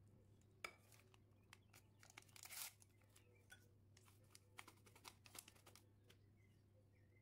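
Faint sharp click, then a paper sachet of baking powder torn open with a brief rustling tear about two and a half seconds in. Scattered light crinkles and ticks follow as the powder is poured into a metal sieve over the batter.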